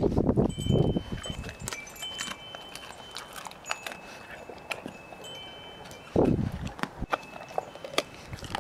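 Wind buffeting the microphone in loud low gusts, one at the start and another about six seconds in. Between the gusts come scattered light clicks and short high ringing tones.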